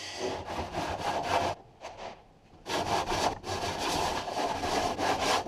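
Abrasive paper rubbed back and forth by hand over the epoxy-glassed fillet along the inside of a plywood hull chine. The quick scratchy strokes come in bursts with short pauses, then run on steadily over the second half.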